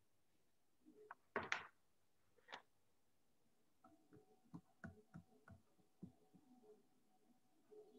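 Near silence broken by a few faint clicks and taps, then a run of soft irregular ticks in the second half.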